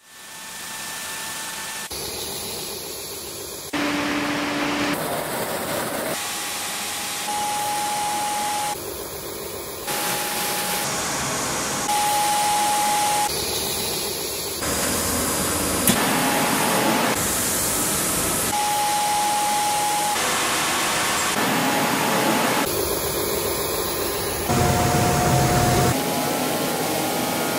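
Industrial wide belt and edge sanding machines running: a steady rushing machine noise with a whining tone, cut together from short clips so that the sound changes abruptly every second or two.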